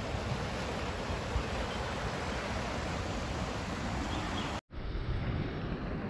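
Steady rush of a creek running high. It cuts out for a split second about four and a half seconds in and comes back duller.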